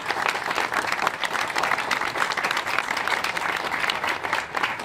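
Audience applauding: dense, steady clapping from many hands that thins out near the end.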